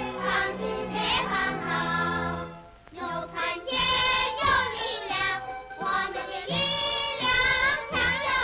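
Singing with instrumental accompaniment: the rousing closing song of a 1950 Chinese cartoon, with a brief break between phrases about three seconds in.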